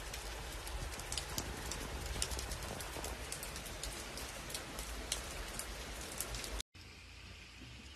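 Downpour falling, with many sharp ticks of drops striking hard surfaces. About two-thirds of the way through it cuts off abruptly to a quieter, steady hiss.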